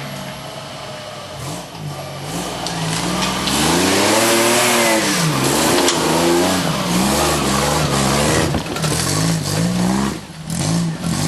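Off-road 4x4 competition vehicle's engine revving hard under load, its pitch climbing to a peak about four seconds in and falling away, then a string of shorter rises and drops.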